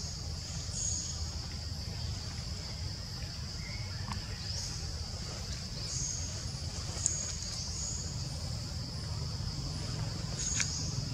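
Steady high-pitched drone of insects, cicadas or crickets, with short high chirps several times over it and a low rumble underneath.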